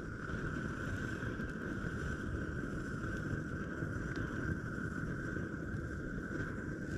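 Propane burner running: a steady low rushing noise with a constant high whistle.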